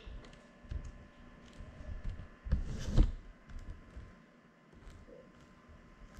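Handling noise: scattered light clicks and knocks, with a louder thump about three seconds in. No drone motors are running.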